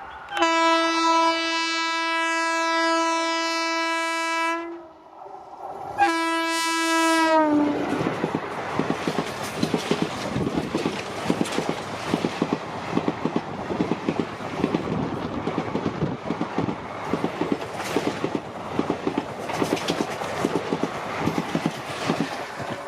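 Indian Railways locomotive horn sounding two long blasts, the second dropping in pitch as it cuts off. Then the train runs past with a steady clickety-clack of wheels over rail joints.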